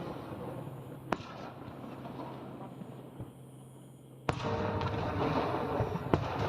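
Fireworks shells bursting: sharp single bangs about a second in and again near the end, and a sudden louder burst about four seconds in that breaks into dense crackling.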